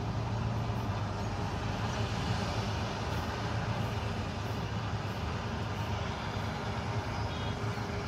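Vishal 435 combine harvester running while cutting a standing wheat crop: a steady low drone that holds at an even level throughout.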